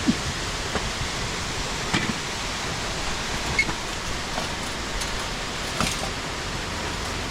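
Steady, even rush of a waterfall, with a few faint clicks and knocks over it.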